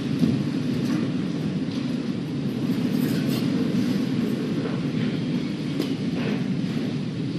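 Courtroom background: a steady low rumble with a few soft knocks and shuffles scattered through it, the sound of jurors filing out of the jury box.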